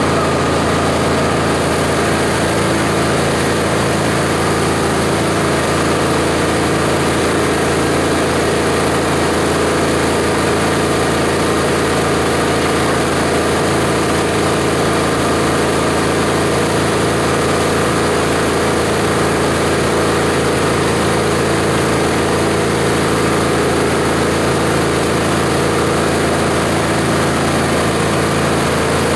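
Esteban 9-in-1 multi-purpose chopper-shredder running steadily: a loud, even machine hum and whir that holds the same pitch throughout.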